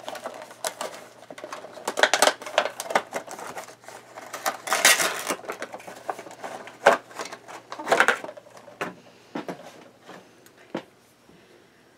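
A Funko Pop vinyl figure being unboxed by hand: cardboard flaps and the clear plastic insert rustling and crinkling, with scattered clicks, in several bursts that die away near the end.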